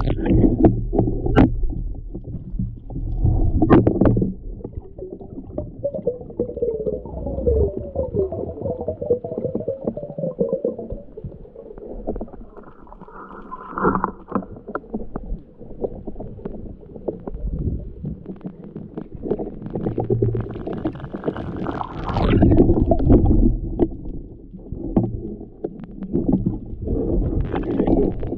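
Muffled underwater rushing and gurgling of water around a diver's action camera as a spearfisher kicks and dives, with a few sharp knocks early on and a louder, brighter rush of water about two-thirds of the way through.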